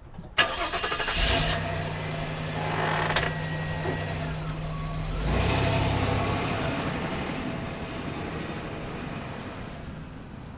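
Car engine cranked by the starter and catching about a second in, then idling steadily. About five seconds in it gets louder as the car sets off, then slowly fades away.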